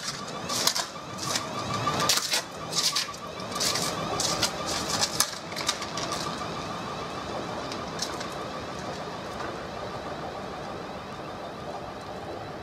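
South Western Railway Class 450 Desiro electric train pulling away on a snow- and ice-covered third rail, its collector shoes arcing with a series of sharp cracks and snaps for the first five seconds or so, a sign of ice breaking the contact between shoe and conductor rail. Under the cracks a steady whine carries on and fades slowly as the train draws away.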